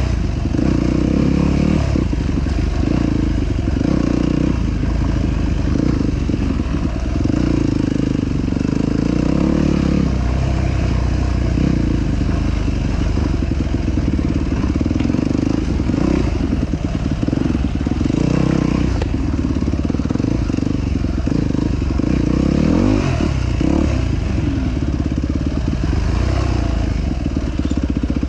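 ATV engine running continuously under way, its pitch rising and falling with the throttle, most plainly in a quick run of revs about four-fifths of the way through.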